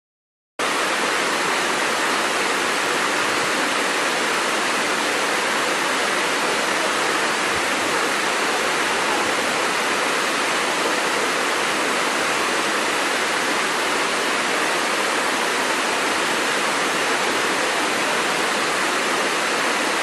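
Waterfall: a steady, even rush of falling water that starts abruptly about half a second in and cuts off abruptly at the end.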